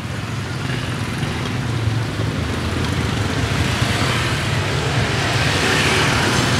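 Steady street traffic: motor vehicle engines running past with a low rumble, growing slightly louder and hissier toward the end.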